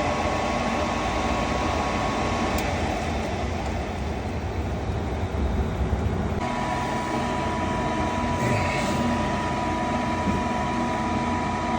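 Goodman gas furnace's fan motor running steadily, with a thin high whine that drops out a couple of seconds in and comes back about six seconds in. The furnace is locked out on an open limit with its rollout switch tripped.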